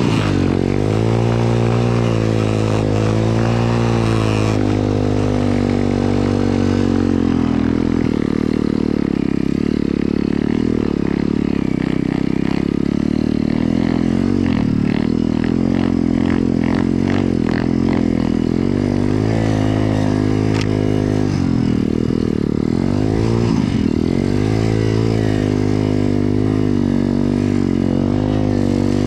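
Single-cylinder pit bike engine running under load through deep snow, its revs rising and falling as the throttle is worked, with a sharp drop and rise again about two thirds of the way in. A rapid clatter runs over the engine midway.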